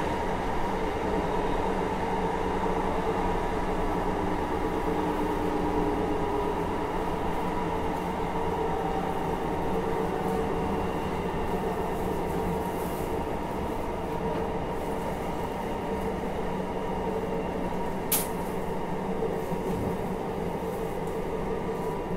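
JR Hokkaido 733 series 3000-subseries electric multiple unit running at steady speed, heard from inside the car: a constant rumble of wheels on the track with steady humming tones from the running gear. A single sharp click sounds once about eighteen seconds in.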